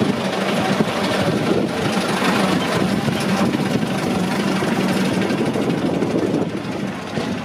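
Steam wagon driving slowly past at close range, a steady mechanical running noise.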